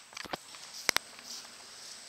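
Footsteps across grass, with a pair of sharp clicks about a second in.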